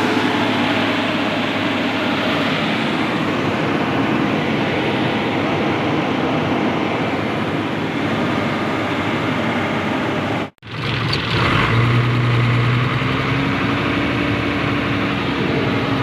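Truck diesel engine running at idle, cut off abruptly about ten seconds in and picking up again as a steadier low hum, with a tone that slowly rises and falls.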